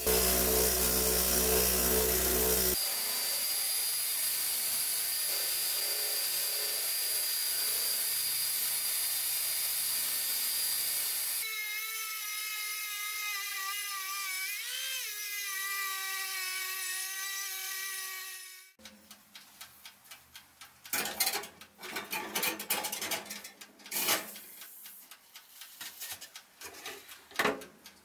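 A bench grinder's wire wheel spinning against a rusty cast iron cornbread pan, stripping the rust, followed by further steady power-tool brushing. Then a rotary tool with a small wire brush whines steadily as it scrubs inside the pan's corn-shaped molds, its pitch rising briefly once midway. Near the end the tool stops, leaving scattered clicks and knocks of handling.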